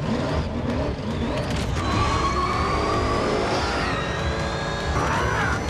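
Supercharged muscle-car engine running with a deep, rough rumble, and a thin high whine slowly rising in pitch over it.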